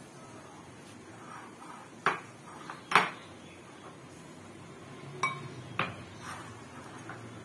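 Glass tumbler clinking and knocking against a glass mixing bowl and the counter while dough is kneaded by hand. There are four sharp clinks, the loudest about three seconds in and one with a short ring, then a few lighter taps near the end.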